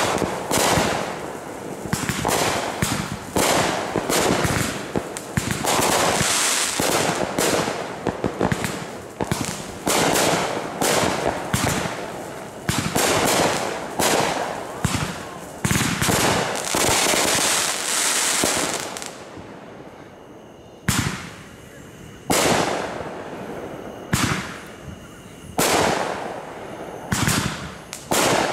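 Aerial fireworks bursting overhead in quick succession, bang after bang. There is a short lull about two-thirds of the way through, then single bangs resume.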